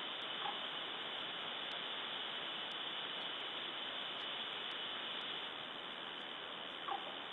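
Steady static hiss from the nest camera's microphone, with two faint short calls, one about half a second in and one near the end.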